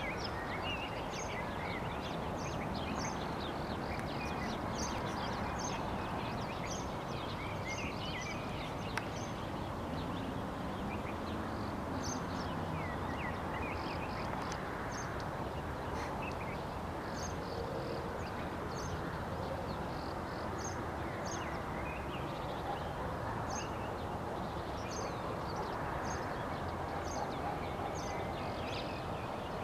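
Outdoor ambience of many small birds chirping in short repeated calls, over a steady background noise.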